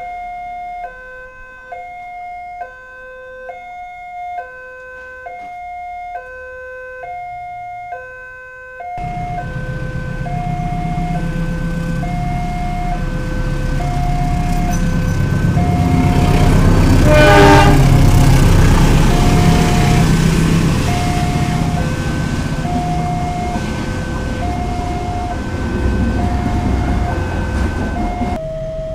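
Electronic warning chime of a railway level crossing, repeating a short two-tone pattern. About nine seconds in, a passing train's rumble comes in suddenly, loudest around the middle and easing off, while the crossing tones keep sounding over it.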